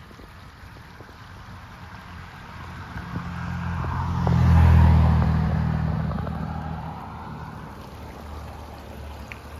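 A car drives past, its engine and tyre noise swelling to a peak about five seconds in and then fading away.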